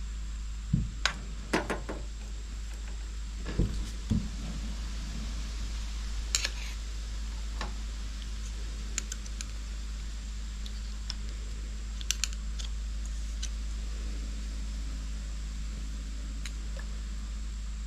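Scattered metal clicks and knocks of a wrench and riser parts being handled while a motorcycle handlebar riser bolt and its old bushing are removed, over a steady low hum. The clicks come in small clusters, busiest in the first few seconds and again about twelve seconds in.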